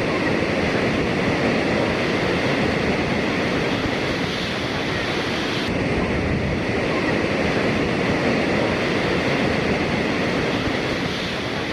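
Small waterfall and stream rushing over rocks in a steady, even roar of water.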